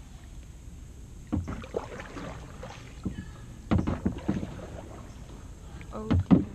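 Kayak paddling: the paddle splashing in the water and knocking against the plastic hull, in a few uneven bursts, the loudest near the end.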